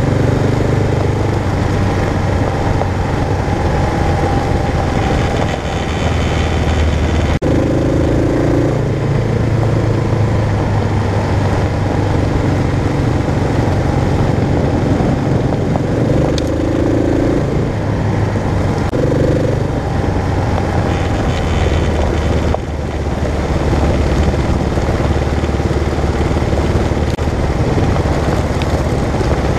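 Kawasaki KLR650's single-cylinder four-stroke engine running steadily as the motorcycle rides along, its note shifting several times.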